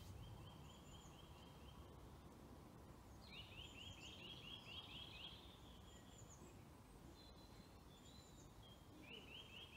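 Faint birdsong: a bird repeats a trill of quick rising notes in three short bouts, at the start, about three seconds in, and near the end, with a few higher calls in between.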